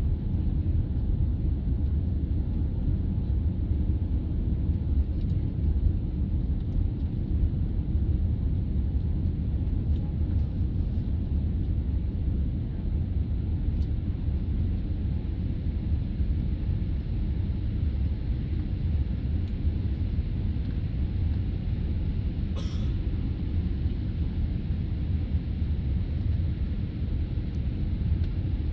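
Steady low rumble of engine and airflow noise inside the cabin of a Boeing 787 climbing after takeoff, with one brief rustle about three-quarters of the way in.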